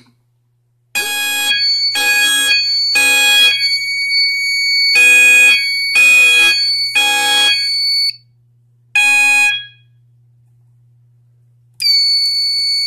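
Fire alarm horns on a Fire-Lite MS-5UD panel system sounding in the three-pulse temporal evacuation pattern, set off by a smoke detector test. Two sets of three pulses, then a single pulse about nine seconds in. A steady high tone sounds under the second set and starts again near the end.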